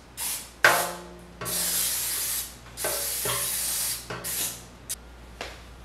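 Aerosol cooking spray hissing onto a metal baking pan in short squirts, then two longer sprays of about a second each, about a second and a half and three seconds in, with light knocks of the pan being handled.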